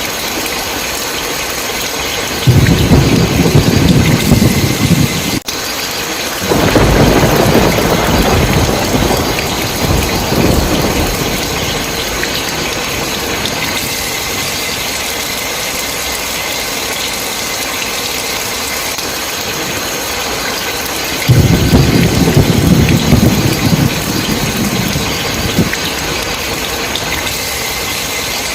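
Heavy rain falling steadily, with three rolls of thunder: one a couple of seconds in, a longer one starting just after it, and another about three-quarters of the way through.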